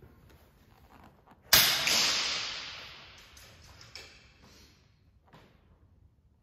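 A single shot from a moderated Kral NP02 .177 air rifle about a second and a half in: a sharp crack whose echo dies away over about two seconds. A couple of faint clicks follow.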